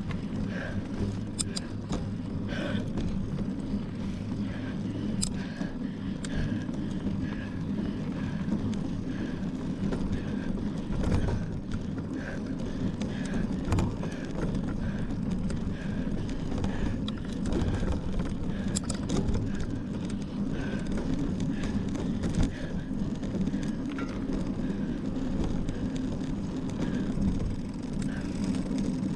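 Mountain bike ridden over a race trail, heard close up on the bike: a steady low rumble of tyres on the ground with scattered rattles and clicks from the bike.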